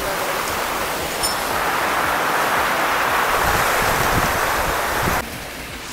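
Sea surf rushing onto the beach in heavy rain and wind, swelling louder a couple of seconds in, then cutting off suddenly a little after five seconds.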